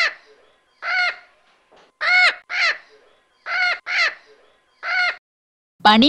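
Parrot calling: seven short squawks, half a second to a second apart.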